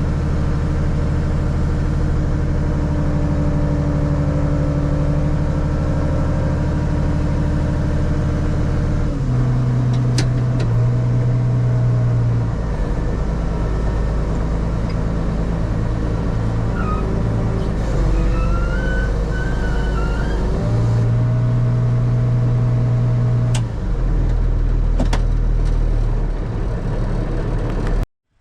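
Tractor engine running steadily under load while the auger wagon's auger unloads soybeans into a semi; its tone shifts a few times. Faint high squeals come in briefly past the middle.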